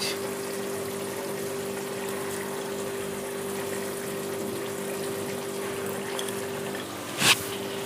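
Egg curry simmering in a kadai over the gas flame: a steady bubbling hiss with a steady low hum under it. A single short knock about seven seconds in.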